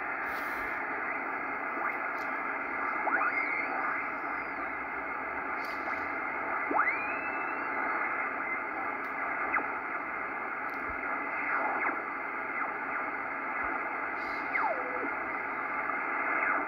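Receiver audio from a Ten-Tec Corsair II HF transceiver on the 20-metre band: steady band-noise hiss through its narrow single-sideband passband. A few whistles slide up or down in pitch as the main dial is tuned across signals.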